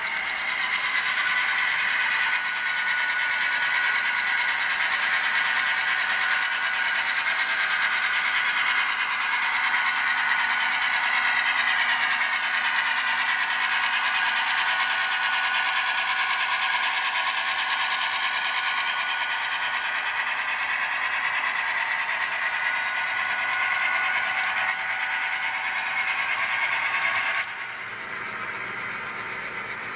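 HO scale model freight train running on the layout track, a steady thin rolling and motor sound with little low end. About 27 seconds in the sound drops suddenly to a quieter, thinner level.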